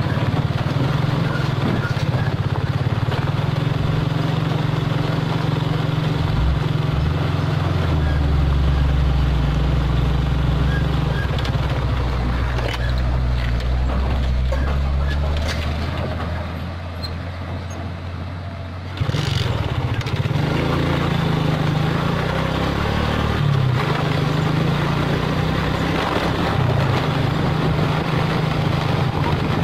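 Diesel engine of a Mitsubishi Fuso 220PS self-loader truck running steadily as it pulls away laden with an excavator. The sound drops a little and then jumps back abruptly about two-thirds of the way through.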